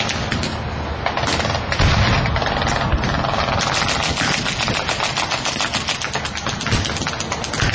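Airshow pyrotechnic ground explosion going off with a deep boom about two seconds in. It is followed by a fast, steady rattle of sharp cracks.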